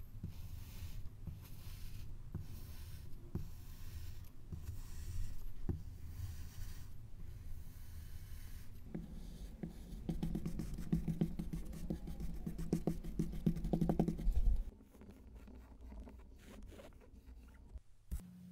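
Kinetic sand crunching and scraping as a metal stamp with a waffle-patterned end is pressed down into the sand cubes, crushing them. It gets louder and crackly about nine seconds in, then drops away sharply around fifteen seconds.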